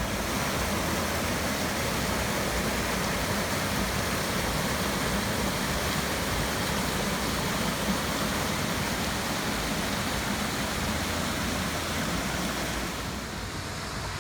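Steady, even rush of falling water, as from a waterfall, easing slightly near the end.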